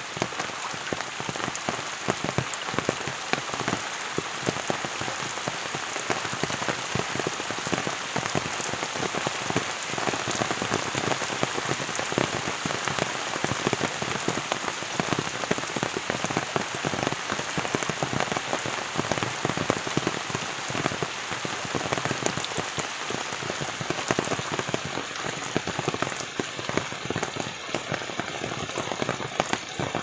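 Steady rain falling, a dense run of small drop hits over an even hiss.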